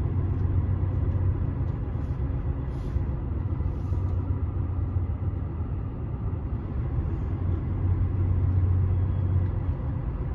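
Lorry's diesel engine and drivetrain running at low speed, heard from inside the cab as a steady low drone.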